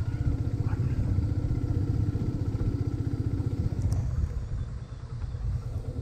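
Motorcycle engine running while riding, its low pulsing steady at first and easing off about four seconds in.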